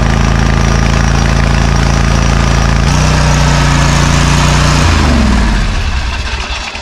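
Twin-cylinder riding mower engine running steadily while being tested with one spark plug wire pulled, to find a dead cylinder. Its pitch steps up a little about three seconds in, then about five seconds in it is shut off and winds down to a stop.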